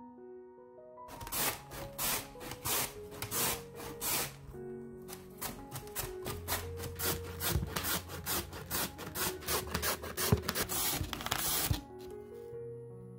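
Peeled Korean radish being julienned on a plastic mandoline slicer: a quick, steady run of rasping strokes, about three a second, as the radish is slid back and forth over the julienne blade. The strokes start about a second in and stop shortly before the end.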